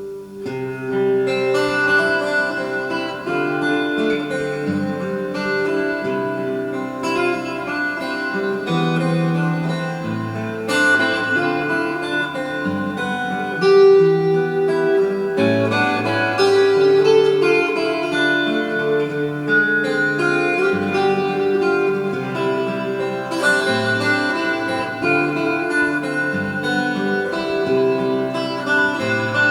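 Calm instrumental music of sustained, plucked string notes, tuned to 441 Hz.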